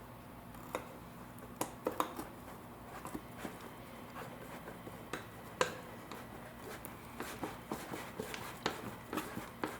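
Scattered light clicks and taps of a hand screwdriver and small screws while a drawer handle is screwed on, the sharpest click about five and a half seconds in, over a faint steady hum.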